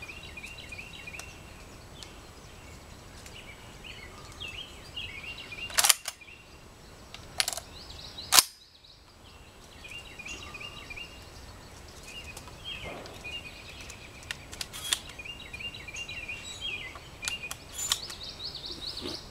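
Weatherby SA-08 12-gauge gas-operated semi-automatic shotgun firing a quick string of shots a few seconds in, the last the loudest. Lighter metallic clicks from the gun being handled come later, and small birds chirp throughout.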